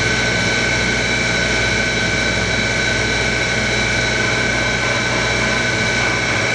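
DCM Tech PDG-5-3 punch and die rotary surface grinder running steadily. Its 3600 RPM spindle spins the cup grinding wheel while the rotary table turns, making a steady whine over a hum. The wheel is in its spark-out dwell, sitting at depth on the punch without feeding, and grinding dry without coolant.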